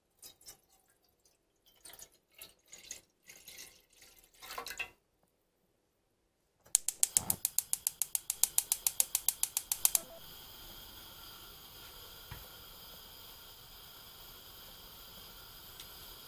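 Water poured from a plastic measuring jug into a nonstick frying pan, splashing unevenly for about five seconds. After a pause, a gas stove's igniter clicks rapidly, about seven times a second for some three seconds, then the burner catches and keeps up a steady hiss.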